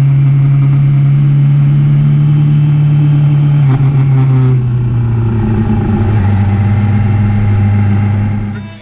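Yamaha R6's inline-four engine running on track, heard from the bike's onboard camera. The engine note drops about four seconds in and holds lower, and the sound fades out near the end.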